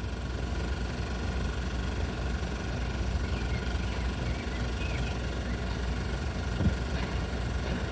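Steady hiss with a low hum under it, from a 65mm magnetic film soundtrack playing a stretch with no music or dialogue. One faint knock comes near the end.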